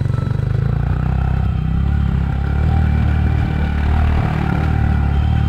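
Motorcycle engine running at low speed up a rough, stony dirt track, with the clatter of the bike jolting over loose rocks.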